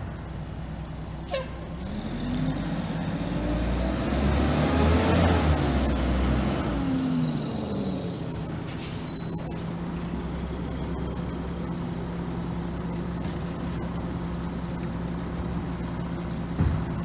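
A vehicle drives past, its engine and tyre noise swelling and fading over a few seconds. About eight seconds in a rear-loader garbage truck's air brakes give a short hiss, then its diesel engine runs steadily as the truck creeps along the street.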